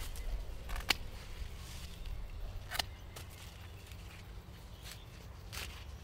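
Secateurs snipping sunflower stems and the stalks and leaves rustling as they are handled, with a few sharp clicks, the sharpest about a second in.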